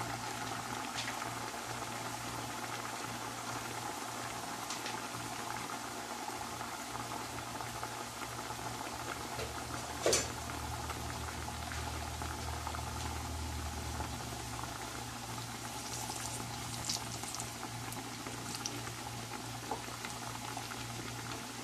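Two masa quesadillas deep-frying in hot oil in a stainless-steel pot: a steady bubbling sizzle, with a single sharp click about halfway through.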